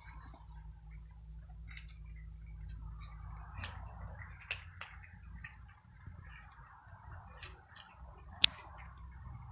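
Several cats crunching dry cat kibble: irregular small crunches and clicks, with one sharp, louder click about eight and a half seconds in.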